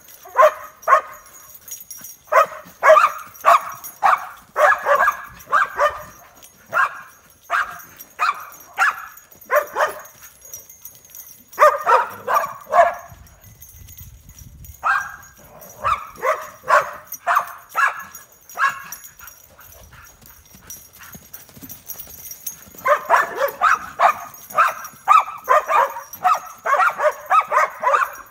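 Dog barking and yipping in quick runs of several barks a second, broken by a few short pauses and busiest near the end, while it darts around a horse.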